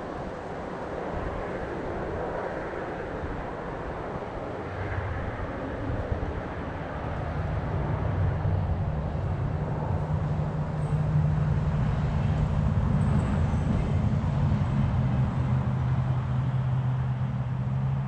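A distant engine's low drone, swelling in about a third of the way through and then holding steady, over a rough outdoor background noise.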